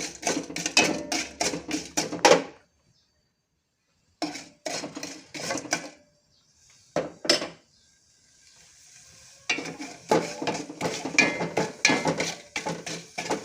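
A utensil stirring and scraping in a pot, clinking against it in quick strokes, as palm sugar is worked into heating ginger juice to dissolve it. The stirring stops for a moment about two and a half seconds in, and there is a brief soft hiss around the middle.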